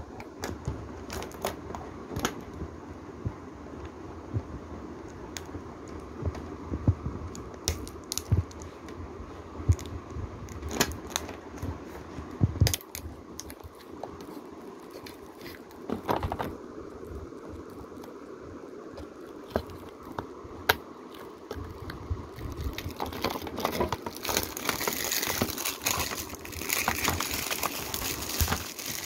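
Plastic shrink-wrap on a Blu-ray case being picked at and torn off: scattered clicks and taps, then steady crinkling of the film over the last several seconds.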